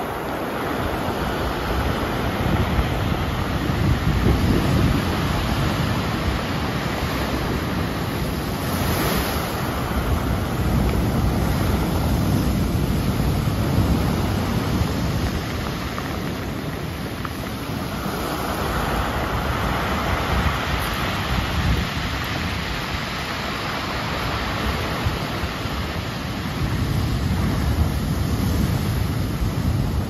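Pacific surf breaking among rocks and washing up over a pebble beach, in a steady rush that swells and eases in surges every several seconds.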